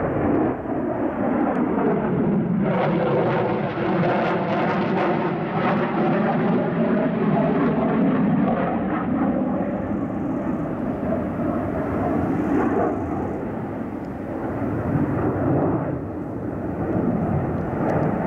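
Lockheed Martin F-35 Lightning II fighter's single turbofan engine, a loud continuous jet roar as the aircraft flies its display manoeuvres. From about three seconds in, a sweeping, phasing tone runs through the roar for several seconds, and it eases slightly near the end.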